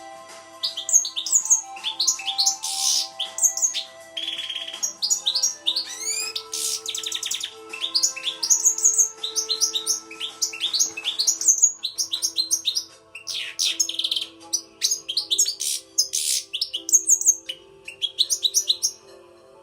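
European goldfinch singing: a fast, continuous twittering of high chirps and quick sweeps, broken by a couple of buzzy trills, with faint steady tones underneath.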